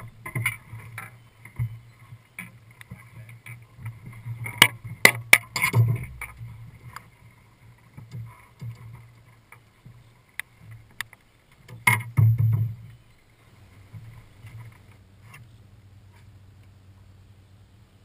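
Sharp knocks and clatter on a boat's deck and hull as an angler lands and handles a smallmouth bass, over a low steady hum. The loudest knocks come in a cluster about five seconds in and again around twelve seconds, after which it settles to the faint hum.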